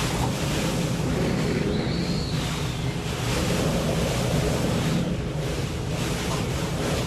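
Hurricane-force wind blowing hard and buffeting the microphone: a steady rushing noise that swells and eases slightly, with a low steady hum underneath.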